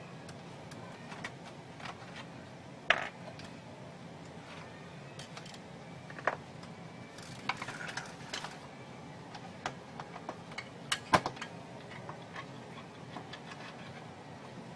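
Scattered clicks and knocks of printer parts and tools being handled during disassembly, with sharper knocks about 3, 6 and 11 seconds in.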